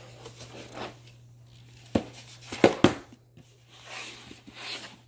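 Cardboard model kit box handled and turned over on a wooden table: scraping and rustling, with a sharp knock about two seconds in and two louder knocks half a second later.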